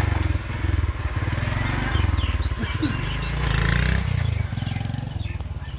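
A small engine running with a low, pulsing rumble, with birds chirping briefly in the middle.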